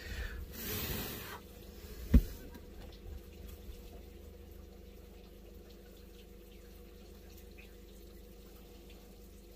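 Muddy floodwater sloshing and trickling around a bogged four-wheel drive, with a short rush of water early on and one sharp knock about two seconds in, then a faint steady hum.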